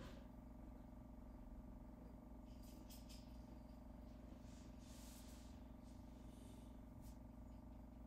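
Near silence: a faint steady hum with light hiss.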